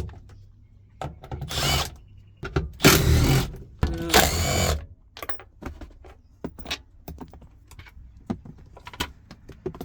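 Three loud bursts of scraping and rattling in the first five seconds, then scattered light clicks and knocks, as the gear shift linkage, its bolt loosened, is worked free from under the car.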